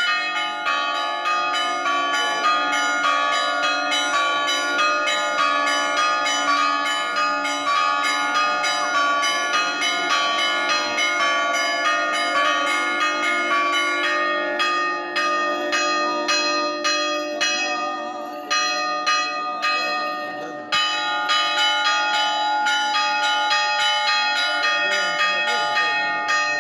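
Church bells ringing in a fast, continuous peal of overlapping strikes, about three a second, with a brief break about three-quarters of the way through.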